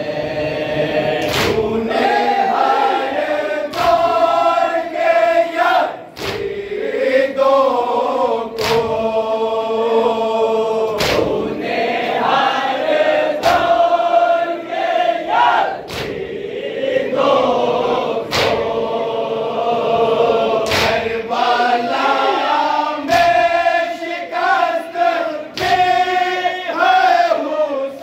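A group of men chanting a Shia nauha (Urdu lament) in unison, with hand-on-chest matam strikes landing together about every two and a half seconds.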